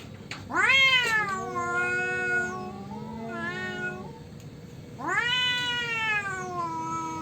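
Two tomcats yowling at each other in a territorial standoff: a long rising-and-falling yowl, then a lower moaning voice and a higher one overlapping, and about five seconds in another loud, drawn-out yowl.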